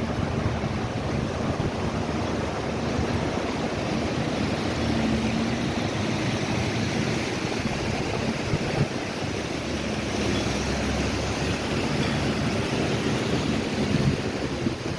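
Steady rush of a fast mountain river (the Beas), with wind buffeting the microphone.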